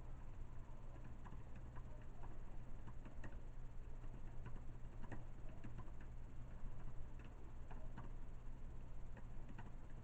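Typing on a computer keyboard: irregular soft key clicks, a few a second, over a steady low hum.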